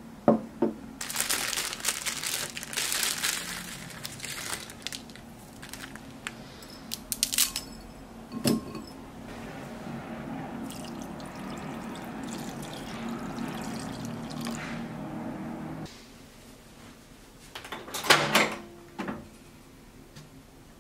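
Instant ramen being made in a ceramic bowl: a knock as the bowl is set down on a wooden table, a few seconds of rustling, several sharp knocks as the dry noodle block goes into the bowl, then water pouring steadily into the bowl for about six seconds, stopping suddenly. A cluster of sharp clatters comes near the end.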